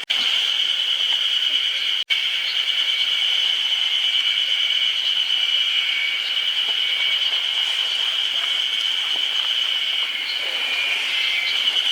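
Steady, high-pitched chorus of calling insects that cuts out for a split second about two seconds in.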